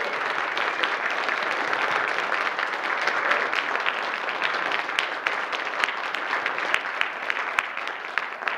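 A congregation applauding: many hands clapping together, dying down a little near the end.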